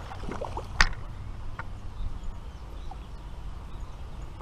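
Light scattered clicks and ticks over a low steady outdoor rumble, with one sharp click about a second in as the loudest sound.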